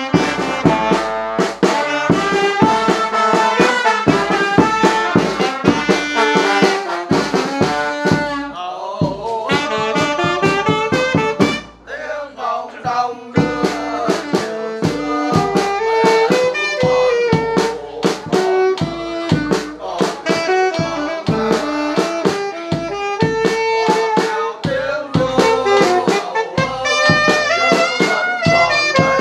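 Instrumental music: a melody of wind instruments over a steady drum beat, thinning out briefly about twelve seconds in.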